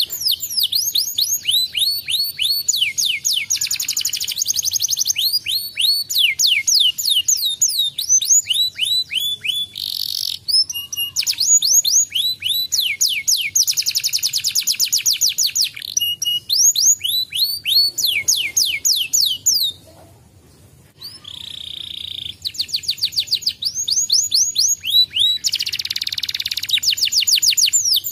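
Domestic canary singing a long, continuous song of fast trills, each made of rapidly repeated high notes sweeping downward, changing speed from phrase to phrase. It breaks off for about a second roughly two-thirds of the way through, then goes on.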